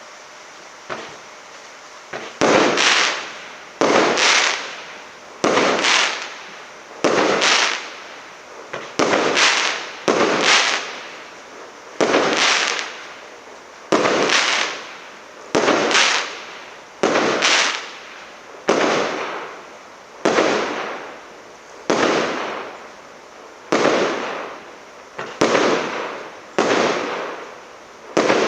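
SL326200 'Marafon' consumer firework battery firing its shots one after another at an even pace, about one every second and a half. Each shot is a sharp bang that fades over about a second. A small pop comes about a second in, before the first big shot.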